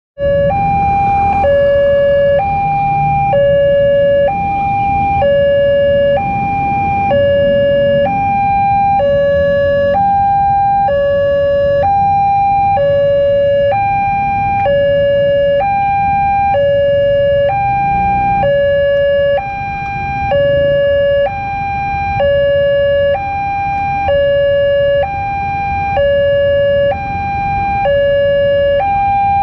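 Railway level crossing warning alarm sounding, an electronic two-tone signal alternating evenly between a higher and a lower tone, about a second each. It is the crossing's alert that a train is approaching while the warning lights flash and the barriers are down.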